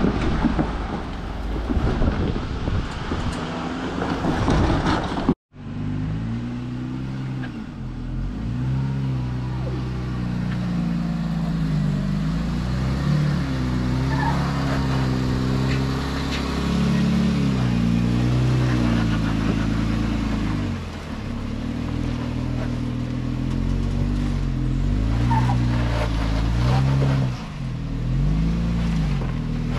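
Off-road vehicle engine running at low revs, its pitch rising and falling again and again as the throttle is worked on a rock trail. For the first five seconds there is only a loud rushing noise, which cuts off abruptly.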